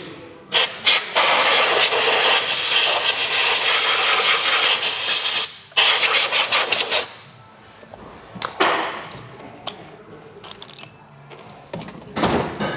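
Compressed-air blow gun blasting sand out of an engine bay: a few short puffs, then a long hiss of about four seconds and another of about a second, followed by a brief puff.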